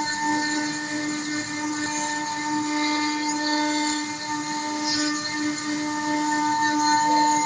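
Stone-engraving CNC router spindle running at a steady, unchanging pitch while its bit cuts into a wet marble slab, with a rough grinding noise from the cut over the whine.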